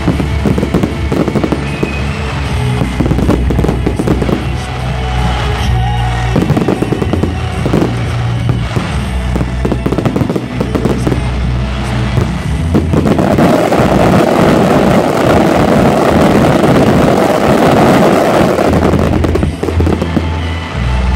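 Aerial firework shells bursting one after another, a string of bangs and pops with music underneath. About two-thirds of the way in, a dense barrage of crackling takes over for several seconds before easing off near the end.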